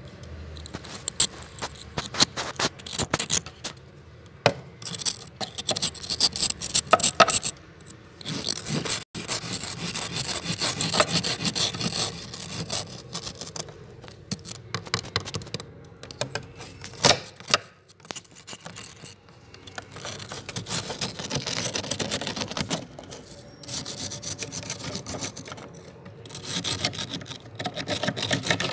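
A tool scraping thick, powdery freezer frost: crunchy scraping strokes, short and sharp in the first several seconds, then longer continuous scrapes broken by brief pauses.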